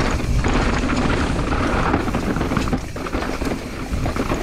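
Enduro mountain bike descending a rocky dirt trail at speed: knobby tyres rumbling over stones, with a steady rush of wind on the microphone and many small rattles and knocks from the bike.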